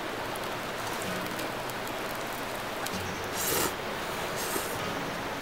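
Steady crackling hiss of a wood fire under a foil tray of simmering ramen broth. A couple of brief louder rustles come about three and a half seconds in, as noodles are lifted into a bowl.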